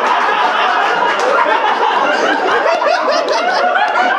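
A group of people laughing and chuckling together in reaction to a joke.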